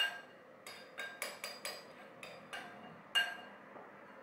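Spoon clinking against a bowl as flour is knocked out of it into a blender jug: a dozen or so light, irregular taps, some with a short ring.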